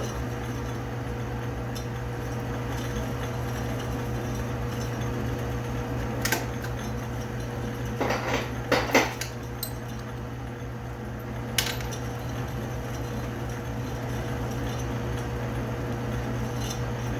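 Metal lathe running steadily with a motor hum while turning a part. A few sharp metallic clinks and rattles break in about six seconds in, in a cluster around eight to nine seconds, and once near twelve seconds.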